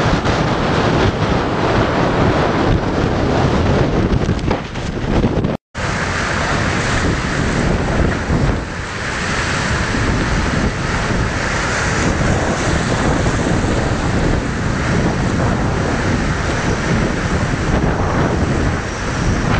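Strong wind buffeting the microphone over rough sea. After a brief cut-out about five and a half seconds in, storm waves crash over the harbour wall and wash across the quay.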